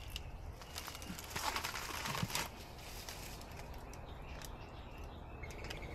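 Quiet background with a low steady rumble, faint rustling and a few light clicks.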